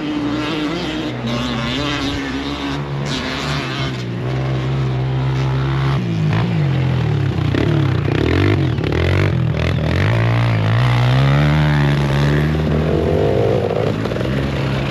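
Dirt bike engines revving and easing off, the pitch rising and falling again and again, with the revving becoming busier about six seconds in.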